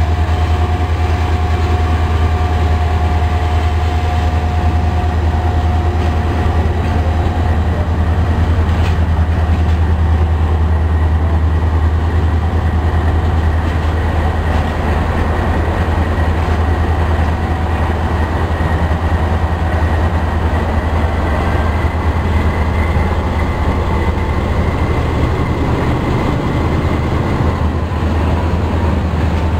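Pakistan Railways diesel-electric locomotive rolling slowly past close by, its engine running with a loud, steady low drone, and its coaches following behind near the end.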